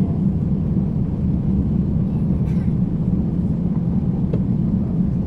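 MAN Schienenbus diesel railbus (No. 302 027, built 1966) standing with its underfloor diesel engine idling steadily: an even, low rumble.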